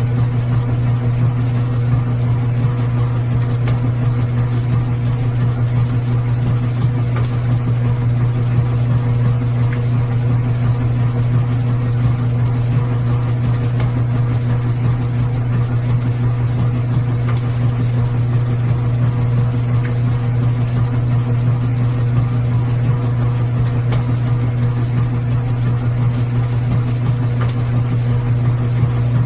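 Washing machine running with a steady low hum, an even mechanical drone with a few faint ticks over it.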